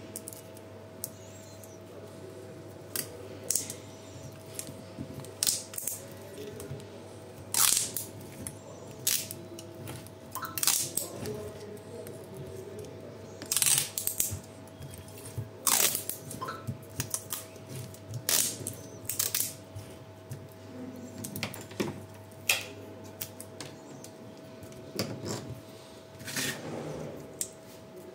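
Irregular clicks, taps and scrapes of hands working on a NiCd drill battery pack, taping the cells and fitting them into the plastic battery case, over a steady faint tone.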